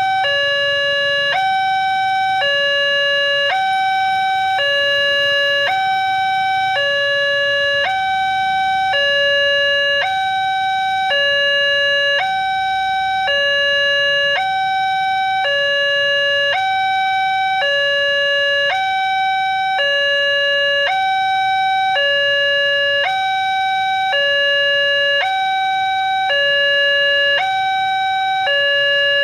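Railway level-crossing warning alarm sounding steadily: an electronic two-tone chime alternating between a low and a higher note about every 0.7 s, the signal that a train is approaching and the barrier is closing.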